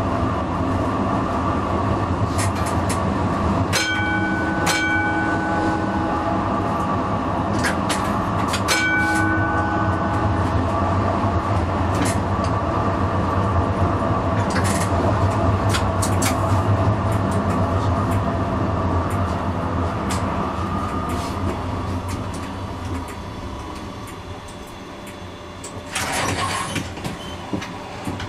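Comeng A-class tram running on street track, heard from the driver's cab: a steady low motor and running hum with scattered sharp clicks from wheels over rail joints and points. Two short ringing tones sound about five seconds apart early on. The running noise fades toward the end, and a short loud hiss comes about two seconds before the end.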